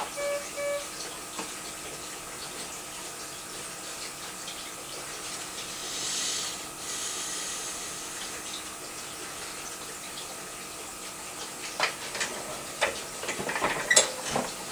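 Three short electronic beeps from the patient monitor, then a steady hiss with a faint constant tone. A brief louder hiss comes about six seconds in, and a run of sharp clicks and rustles near the end.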